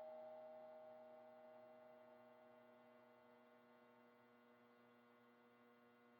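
Crash-ride cymbal ringing out after a single hit, its shimmering overtones slowly fading to near silence.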